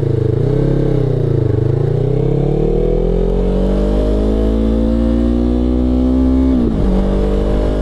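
Motorcycle engine under way, revs rising and falling briefly, then climbing steadily for several seconds as it accelerates before dropping sharply near the end.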